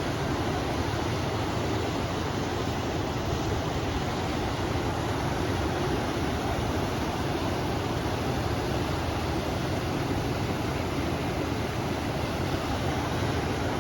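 River water rushing steadily, mixed with wind, as one unbroken noise that is heaviest low down.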